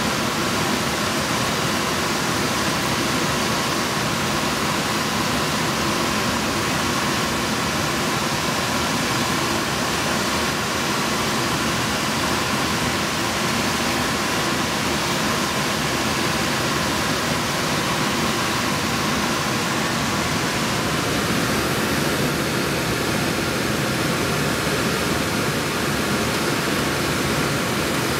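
Steady rush of airflow over a glider in flight, heard from inside the cockpit.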